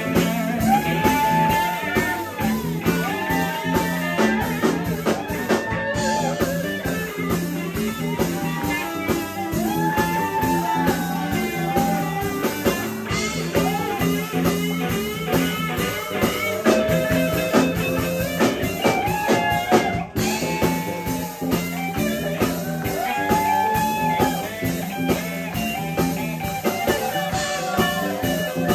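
Live band playing electric guitars, bass guitar and drum kit, with a lead line of pitched phrases that bend up and down over a steady low groove.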